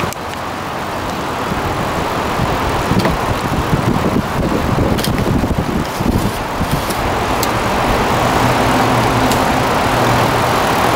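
Steady rushing outdoor noise of wind on the microphone and flowing river water, with a few faint clicks. A low steady hum comes in near the end.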